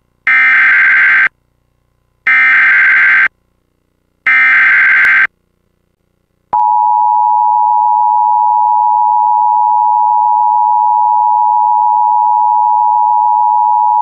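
Emergency Alert System activation for a tornado warning: three one-second bursts of SAME header data, a buzzy warble, about a second apart. About a second and a half after the third, the steady two-tone EAS attention signal starts and holds.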